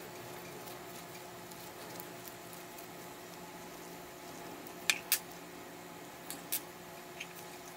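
Gloved fingers unscrewing a threaded brass retaining ring from a binocular objective lens: faint rubbing and handling, then a few small sharp clicks, two close together about five seconds in, as the ring comes free. A faint steady hum sits underneath.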